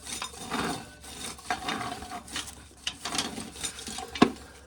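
Dry corn being shelled: kernels rasping off the cob in irregular strokes and rattling into a pail, with one sharp click about four seconds in.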